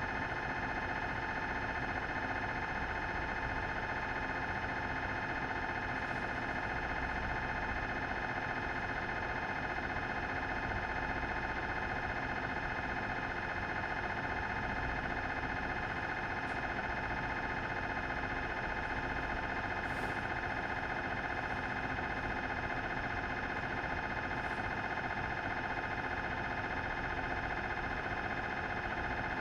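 Philips 1.5T MRI scanner's gradient coils buzzing through a scan sequence: a steady, unbroken tone with many overtones, strongest in the upper-middle pitches.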